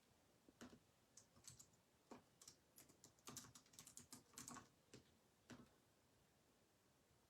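Faint typing on a computer keyboard: a run of irregular key clicks, bunched in quick flurries, that stops about five and a half seconds in.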